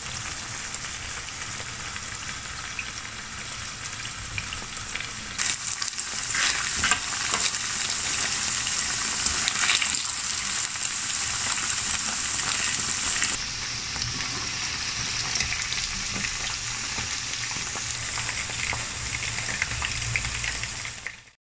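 Chicken pieces sizzling steadily as they fry in hot oil, stirred with a wire-mesh skimmer that adds scattered clicks. The sizzle grows louder about five seconds in, eases back a little after about thirteen seconds, and cuts off abruptly just before the end.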